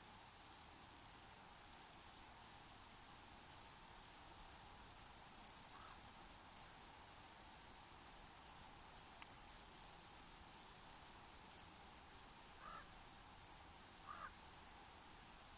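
Cricket chirping steadily at one high pitch, about two to three chirps a second, over a faint even hiss. A single sharp click about nine seconds in, and a few short lower calls near the end.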